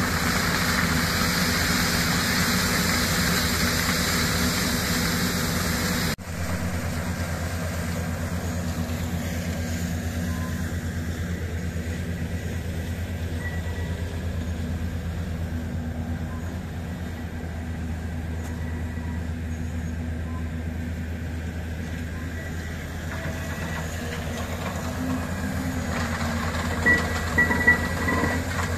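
Borehole drilling rig running steadily with a low engine hum. For the first six seconds there is a loud hiss of muddy water and cuttings spraying out of the borehole. After a sudden cut a quieter steady hum continues, with a few short knocks near the end.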